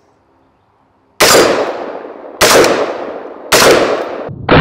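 Three semi-automatic rifle shots from an Anderson Manufacturing Dissipator AR-15 with a 16-inch barrel, about a second apart, each echoing off across the range. Near the end, a steady loud noise sets in.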